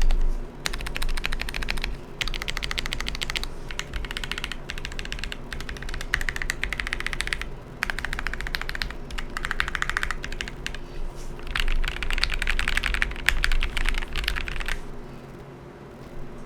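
Fast typing on a Fancy Alice 66 gasket-mounted mechanical keyboard with a POM plate, Gateron Milky Yellow Pro linear switches and MA profile keycaps. The key clacks come in dense runs of a few seconds with short pauses between them, and they thin out near the end.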